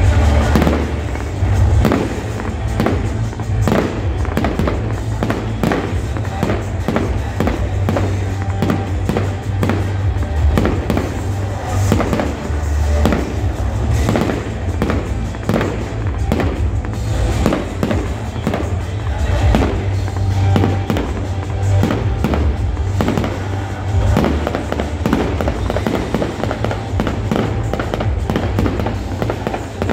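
Fireworks going off in rapid succession, a dense run of bangs and crackles, with loud music playing along.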